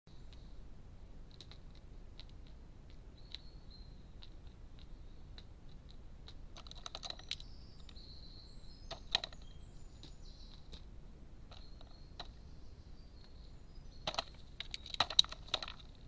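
Carrion crow pecking and tapping at walnut shells on a feeding board: sharp clicks and knocks in quick runs, loudest near the end.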